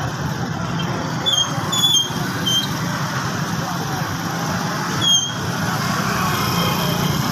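Busy street traffic noise: a steady rumble of vehicle engines, with a few short high-pitched squeaks about a second in and again around five seconds.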